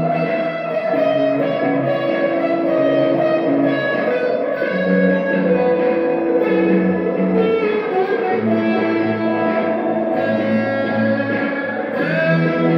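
Electric guitar music through effects pedals: layered, overlapping held notes in a slow, ambient texture.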